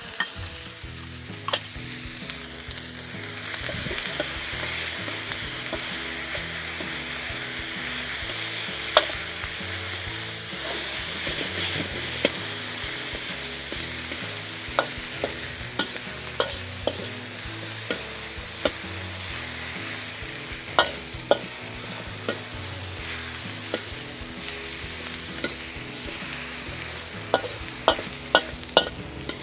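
Vegetables sizzling in a very hot wok as they are stir-fried, with a metal wok spatula scraping and clacking against the pan now and then. The sizzle swells a few seconds in.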